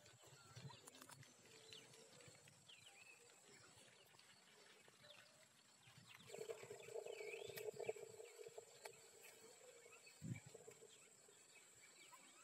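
Quiet rural ambience with faint scattered bird chirps and a thin steady high tone; about six seconds in, a distant held tone lasts about two seconds.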